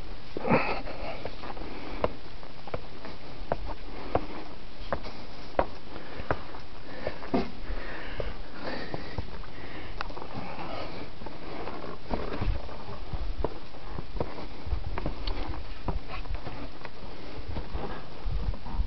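Footsteps on a rocky mountain trail, a regular step about every three-quarters of a second, with rustling and intermittent low rumbling.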